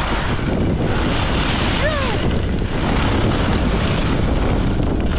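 Wind buffeting an action-camera microphone during a fast ski run, mixed with the skis running over groomed snow, as a steady loud rush. A brief falling tone about two seconds in.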